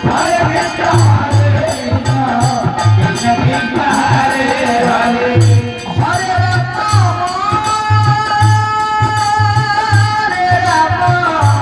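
Devotional kirtan music: singing over a low, repeating drum beat and steady cymbal-like clicks. In the second half the singer holds one long note.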